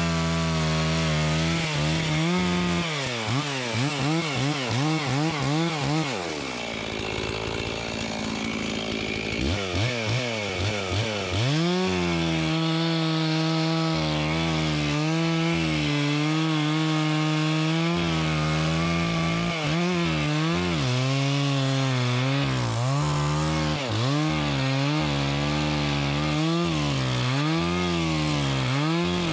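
Stihl 036 two-stroke chainsaw of about 62 cc running at full throttle while cutting into a fir trunk, its pitch wavering under load. It holds its revs without bogging down in the cut. The engine note drops away about six seconds in and revs back up about three seconds later.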